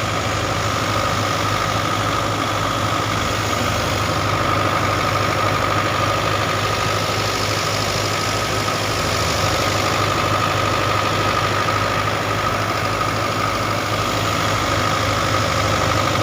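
Tractor engine running steadily at a constant speed, with an even low pulse and a steady high whine over it.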